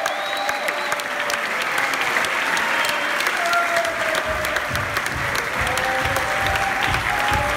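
Audience applauding, a dense crackle of many hands clapping. A low rhythmic beat joins underneath about four seconds in.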